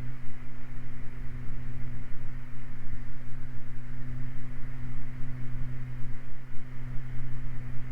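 Steady drone of a Beechcraft Baron's twin piston engines and propellers in flight, heard from the cockpit as an even low hum with hiss above it.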